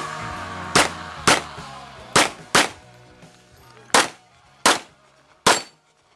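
Glock 34 9 mm pistol firing seven shots at uneven intervals, some in quick pairs, during a practical shooting stage.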